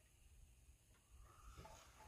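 Near silence, with a faint brief scrape of hand work on the engine about one and a half seconds in.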